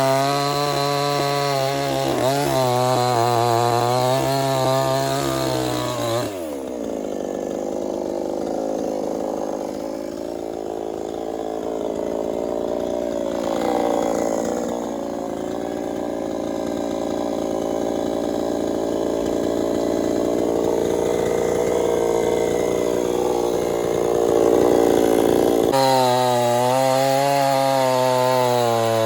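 Chainsaw engine running at high revs with a wavering pitch. About six seconds in it drops to a lower, rougher note for some twenty seconds as the chain cuts through wood, then returns to the high, wavering note near the end.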